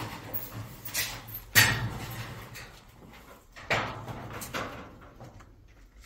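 Several sudden thumps, the loudest about a second and a half in.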